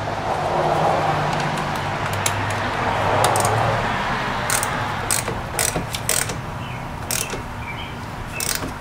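Hand ratchet clicking as the nut on the battery's positive terminal clamp is tightened, a dense rattle at first, then a string of separate sharp metal clicks in the second half.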